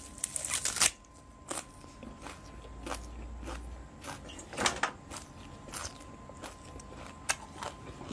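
Biting and chewing raw green onion stalks close to the microphone. A dense run of crisp crunches comes in the first second, then occasional single crunches and mouth clicks.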